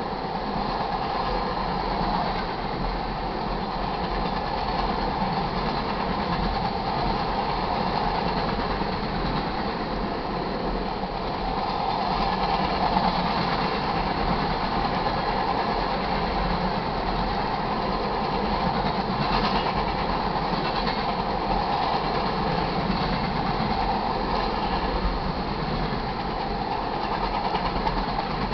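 Freight train of tank cars rolling steadily past, with a continuous rumble and hiss of steel wheels on the rails.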